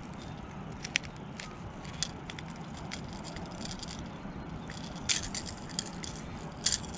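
Scattered sharp clicks and light rattles of pliers and a hooked jerkbait being handled while a fish is unhooked, over a steady low rumble of background noise.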